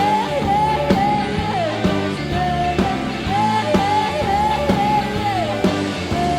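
Background rock song: a sung melody with long held, sliding notes over a steady beat.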